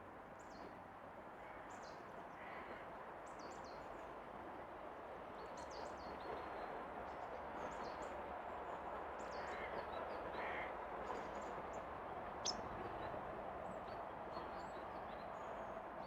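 Small birds giving many short, high chirps, with a few lower calls among them, over a steady outdoor background rush. A single sharp click sounds about twelve seconds in.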